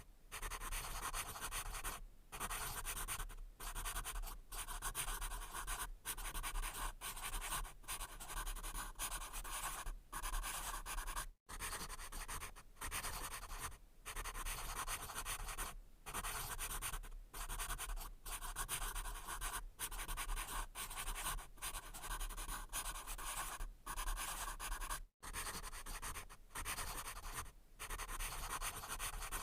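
Pencil writing on paper: a dry, scratchy sound in short strokes, broken by brief pauses about once a second.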